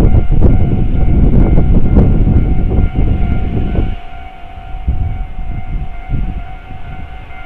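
Japanese railway level-crossing alarm ringing its standard electronic bell tone steadily, while a train passes with a loud rumble that dies away about four seconds in.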